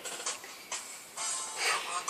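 Music playing, a song heard in the background.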